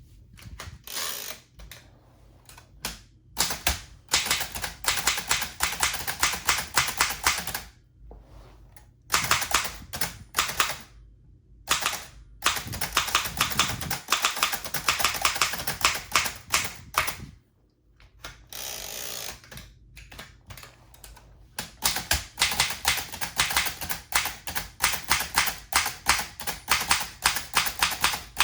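1923 Remington Portable #2 typewriter being typed on: rapid runs of key strikes in several bursts, separated by short pauses.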